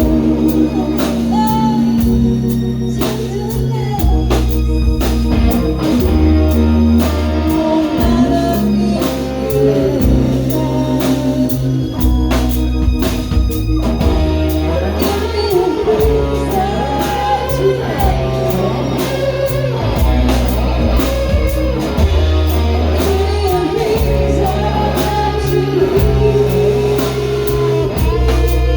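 A band playing a song: a singer over guitar, long held bass notes that change every couple of seconds, and steady drum strokes.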